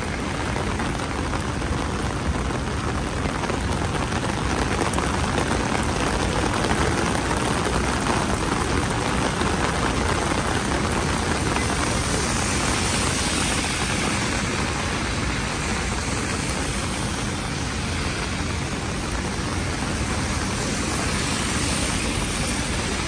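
Steady rain falling on a city street, an even hiss, mixed with the noise of traffic.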